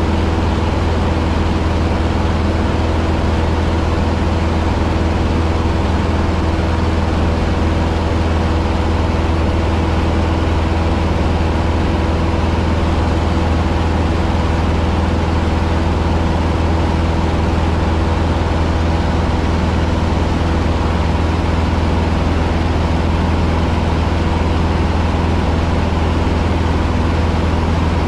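Cessna 150's four-cylinder Continental O-200 engine and propeller droning steadily, heard inside the cockpit. The low drone holds a constant pitch, with no rise or fall in power.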